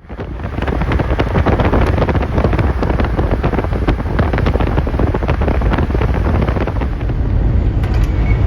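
Steady rushing noise of a moving vehicle, with wind buffeting the microphone in crackly gusts. It fades in quickly at the start.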